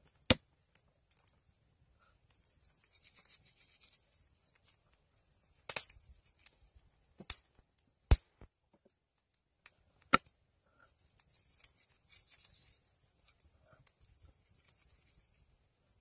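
Hands rubbing coarse salt and pepper into a raw steak on a wooden board: soft rustling and scratching of grains and skin on meat, broken by about five sharp taps.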